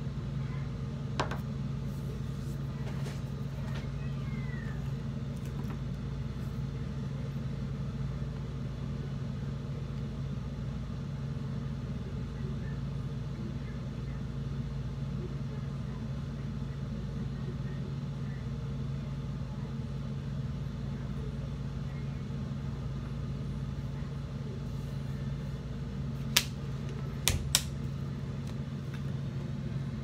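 A steady low mechanical hum, like a motor or engine running. There is one sharp click about a second in and three sharp clicks close together near the end.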